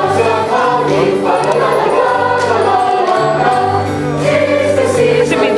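Mixed-voice school choir singing in parts over low held accompaniment notes that change every second or so.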